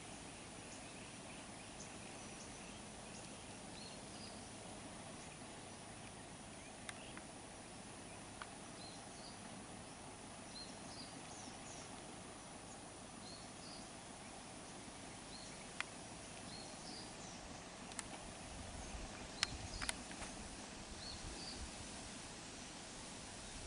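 Faint steady background hiss with scattered short, high chirps of small birds and a few sharp clicks. About nineteen seconds in, a low rumble rises, with a couple of sharp knocks.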